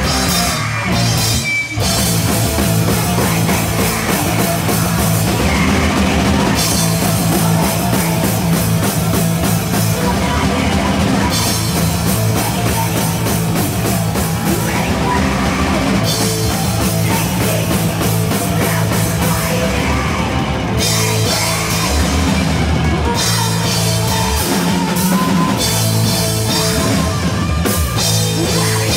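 Loud live heavy rock from a band: electric guitar and a full drum kit playing hard. There is a short break about one and a half seconds in.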